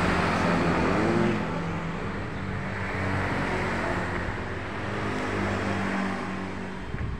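Road traffic with a vehicle engine running close by, louder for the first second or so, then settling into a steady hum.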